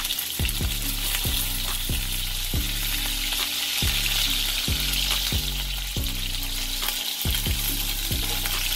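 Panko-breaded halalu (small bigeye scad) frying in hot oil in a frying pan: a steady sizzle.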